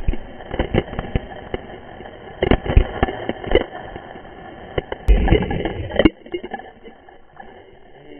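Splashing water from people jumping in close by, with spray slapping against a GoPro's waterproof case: a run of sharp slaps and thuds, then a heavier burst of splashing about five seconds in. After that it settles to quieter sloshing.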